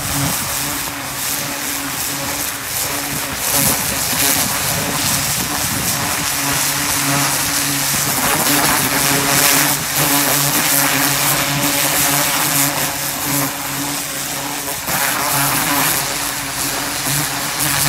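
Pressure washer running steadily, its high-pressure water jet hissing as it blasts into the soil of a flower bed and tears out the weeds by the roots. The hiss swells and eases as the wand is swept back and forth.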